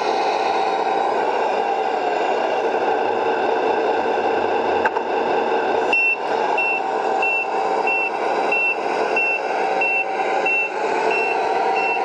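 Tamiya MFC-03 sound unit in an RC Scania R620 truck playing a steady simulated diesel engine sound. About six seconds in, its reversing warning beeper starts, a short high beep about one and a half times a second, as the truck backs up.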